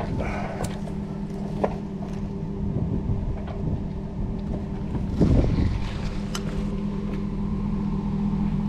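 Chevrolet Silverado pickup's engine idling steadily, with scattered clicks and scuffs of footsteps and strap handling and a brief louder rustle about five seconds in.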